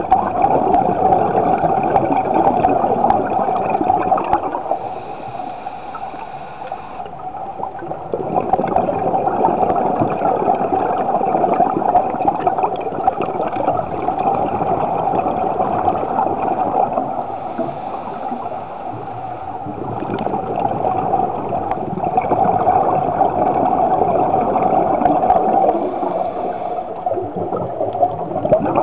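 Muffled underwater sound of a scuba diver breathing through a regulator: bubbling, gurgling exhalations that swell and fade in slow cycles, with quieter gaps between breaths.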